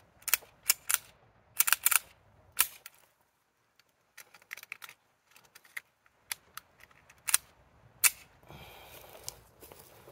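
Sharp metallic clicks and clacks from handling a Smith & Wesson .380 pistol as its action and magazine are worked, coming in irregular clusters with a pause a few seconds in. Rustling follows near the end.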